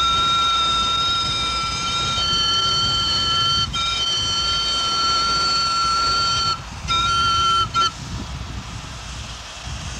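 Steam locomotive whistle blowing: a long blast whose tone shifts a couple of seconds in, a second long blast, then two short toots that end about eight seconds in. The low rumble of the train running carries on underneath.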